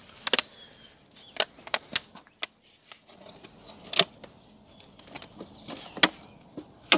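Plastic jar being handled and its screw-on lid twisted off: irregular sharp plastic clicks and knocks, a loud one about every second or two.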